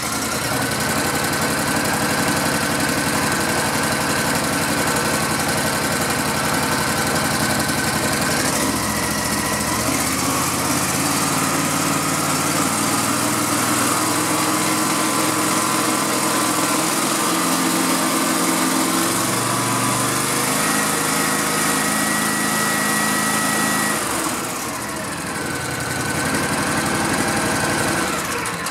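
Kawasaki engine of a riding lawn mower running at full throttle, steady apart from a few small shifts in speed and a brief dip a few seconds before the end, then starting to die away at the very end.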